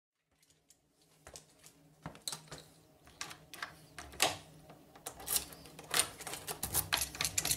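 Metal clicks and clatter of locking pliers (mole grips) being handled and clamped onto a brass euro cylinder lock in a door. The clicks are scattered at first and grow into a busy run of rattles in the second half.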